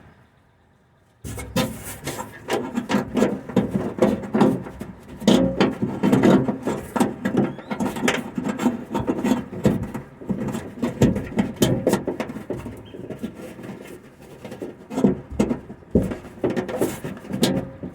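Window U-channel scraping, rubbing and clicking against the inside of a 1956 Studebaker Hawk door as it is worked into place to seat its mounting clip in the door's slot, heard from inside the door cavity. After a brief silence the scrapes and small knocks start about a second in and keep going densely.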